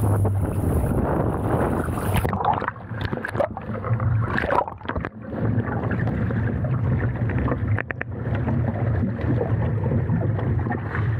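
Water rushing and spraying past a Laser 2 dinghy's hull at speed in strong wind, cutting off abruptly about two seconds in as the boat goes over. After that, water sloshes and splashes against the hull lying in the water, with a few sharp knocks and a steady low rumble of wind.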